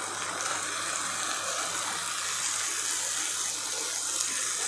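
Onion, capsicum and sauce mixture sizzling steadily in a hot pan.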